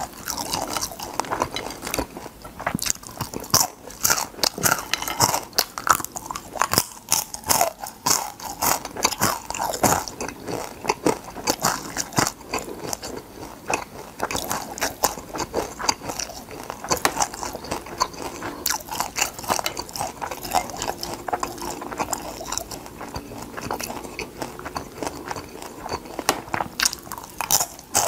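Close-miked crunching and chewing of deep-fried crab, the fried shell cracking between the teeth in quick, irregular crunches.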